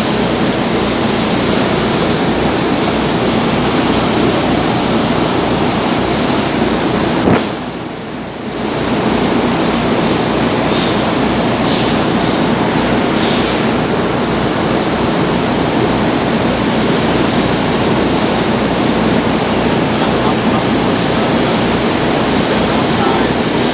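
Steady loud rushing machinery noise with a low hum underneath. A sharp click comes about seven seconds in, and the noise drops briefly for a second or so before returning.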